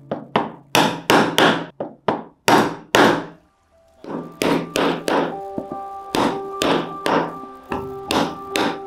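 Mallet striking a stitching chisel (pricking iron), driving it through a leather watch strap to punch stitching holes: a run of sharp knocks, about two to three a second, with a short pause about three and a half seconds in.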